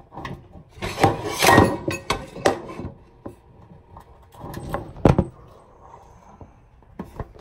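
Things being handled close to the microphone: a scraping, rustling stretch about a second in, then scattered knocks and clacks, the loudest a knock about five seconds in.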